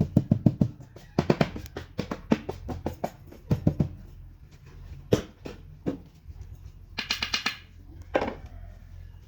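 Several short bursts of rapid, sharp strikes, about eight a second, separated by pauses.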